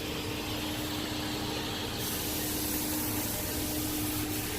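Steady background hiss with a faint, constant low hum, with no knocks or tool sounds.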